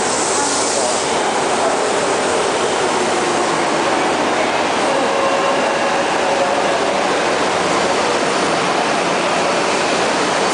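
Tokyo Metro Hibiya Line subway train pulling into an underground station platform and running past at speed, a steady, loud noise of wheels on rails and running gear.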